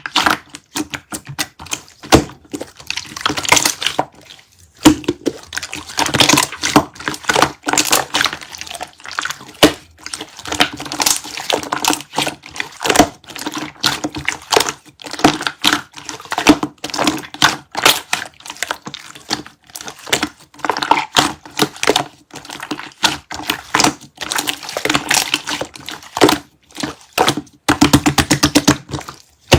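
Clear slime being squished and pressed by hand, making a dense, irregular run of sticky clicks and wet pops, with a quick even string of clicks near the end.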